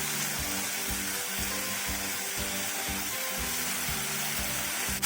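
Okra and carrots sizzling steadily in hot oil as a stir-fry with light soy sauce, under background music with a steady beat.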